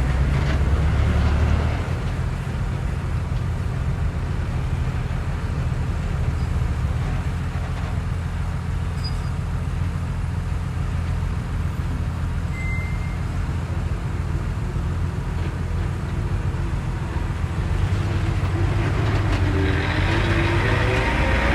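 Diesel engines of heavy earthmoving machinery running steadily. The sound is louder for the first couple of seconds, and near the end it builds again with a rising engine note.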